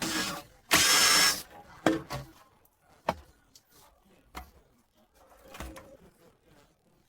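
A power tool runs briefly with a high whine for under a second, followed by several separate knocks of metal tools being handled.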